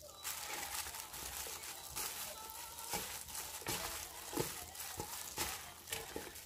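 Hand in a disposable plastic glove tossing flour-coated green chili peppers in a stainless steel bowl: steady crinkling and rustling of the glove and peppers, with irregular soft taps against the bowl.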